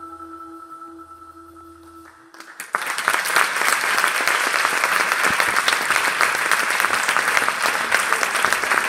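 The last held chord of the percussion ensemble's mallet instruments rings out softly and fades. About two and a half seconds in, the audience breaks into loud applause.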